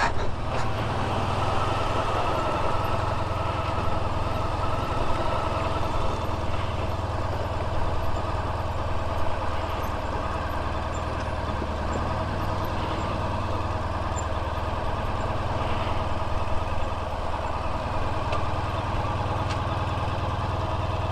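Honda VFR1200X Crosstourer's V4 engine running steadily at low, even revs.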